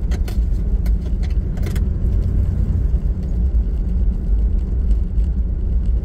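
Steady low rumble of engine and tyre noise inside a four-wheel drive's cabin cruising on a sealed highway, with a few light rattles in the first two seconds.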